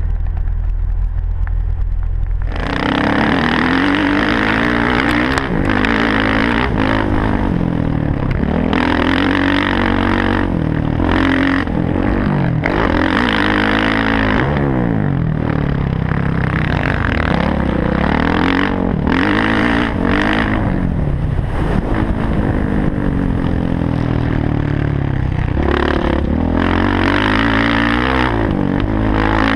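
Dirt bike engine revving hard and repeatedly, pitch climbing and falling with the throttle and gear changes as the bike is ridden round a motocross track, with short dips where the throttle is shut. For the first two seconds or so, a steady low engine drone inside a vehicle cab, which then cuts off into the bike.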